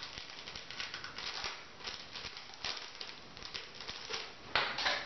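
Dry, tightly coiled 4C natural hair being twisted and handled by hand, giving an irregular crackling rustle, with a louder rustle near the end.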